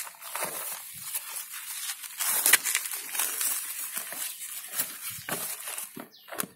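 Black plastic polybag planter and plant leaves rustling and crinkling as they are handled, in irregular scrapes with a sharper crackle about two and a half seconds in.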